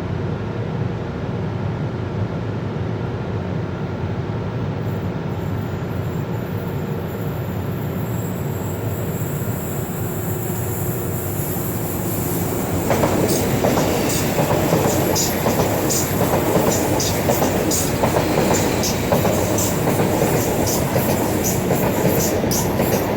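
A steady low diesel engine rumble from a waiting train. About halfway through, a train passes close by, louder, with its wheels clicking over the rail joints and squealing briefly many times.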